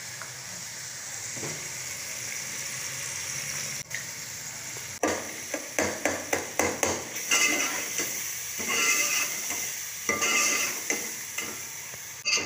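Onion-tomato masala with freshly added spices frying in a metal pot on a gas burner, with a steady sizzle. From about five seconds in, a metal ladle stirs and scrapes against the pot in quick repeated strokes, about three a second at first, then in uneven bursts.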